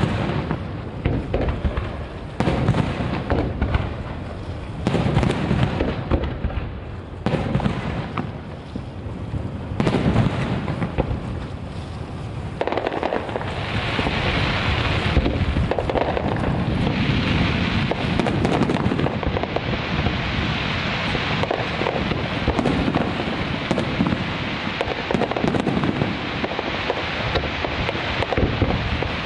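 Aerial fireworks shells bursting one after another in a professional display. From about halfway through, the bangs run together into a dense, continuous crackle.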